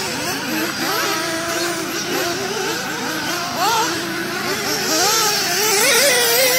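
Several radio-controlled off-road cars racing, their small engines overlapping, the pitch of each rising and falling as they accelerate and slow through the turns.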